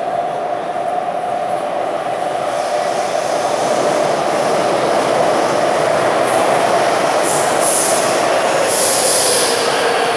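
Metro train running in the station: a loud steady rumble with a whine that slides slowly lower near the end, growing louder over the first few seconds, with short bursts of high hiss in the second half.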